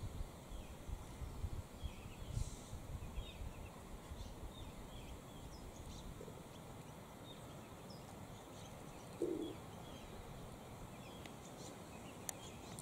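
Faint bird calls in dry bushland: many short, high chirps scattered throughout, over a low rumble. A brief lower sound comes about nine seconds in, and a few sharp ticks near the end.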